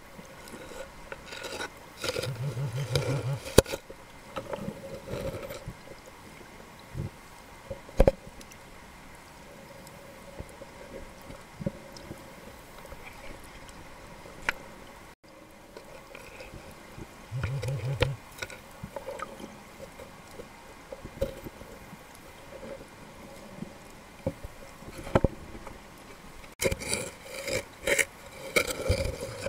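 Muffled underwater sound from a submerged camera: water moving and rubbing against it, with scattered clicks and knocks. A brief low pulsing sound comes about two seconds in and again about halfway through.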